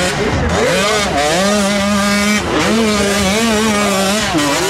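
Racing motorcycle engine revving hard, its pitch climbing and holding, dropping briefly about two and a half seconds in, then rising again.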